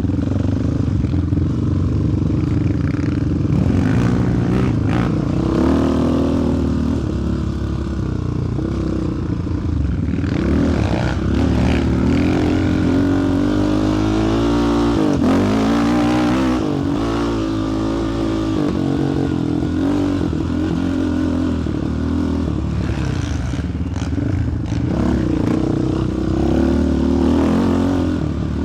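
Single-cylinder four-stroke sport quad engine running under a rider, the revs rising and falling as it is throttled, with a spell of quicker revving up and down about halfway through.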